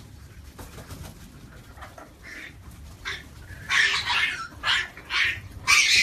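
African grey parrots calling in a flock: after about three seconds of low background chatter, a run of loud, harsh squawks, four or five in quick succession.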